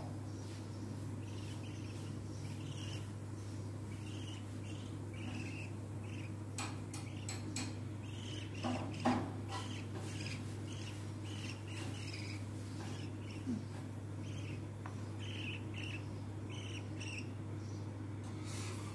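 Baby budgie (budgerigar chick) giving short, high chirps over and over, about one a second, while being hand-fed, with a steady low hum behind and a few light clicks midway.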